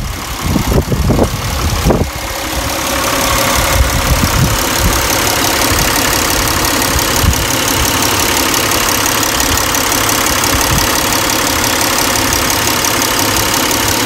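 A Toyota 1MZ-FE 3.0 L V6 idling warm at around 700 rpm, heard close up under the hood, with a steady hiss over the running. A few irregular knocks and handling bumps sound in the first two seconds.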